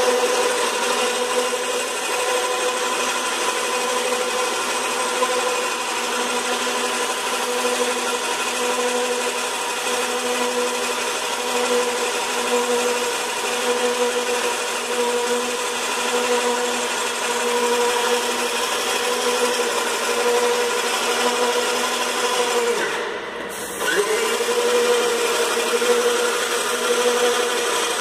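Cetec SM10 airless paint sprayer running while spraying: a steady hum from its 750 W electric motor and pump under the hiss of paint leaving the gun. About 23 seconds in the spray hiss stops briefly and the motor's pitch sags, then both come back.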